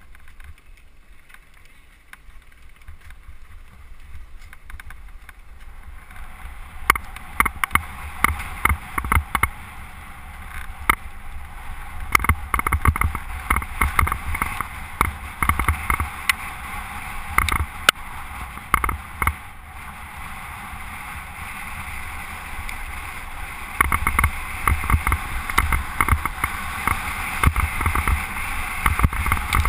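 Specialized Big Hit 3 mountain bike riding fast over a rough gravel and dirt track, heard from a helmet-mounted camera: tyre rumble and wind noise with frequent sharp knocks and rattles from bumps. It grows louder as speed builds, and the knocks come thick from about seven seconds in.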